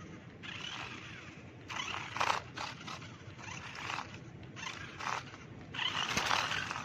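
Toy RC car driven in short spurts, a raspy scraping noise from its wheels and motor on rough ground, coming about six times. The loudest spurts are about two seconds in and near the end.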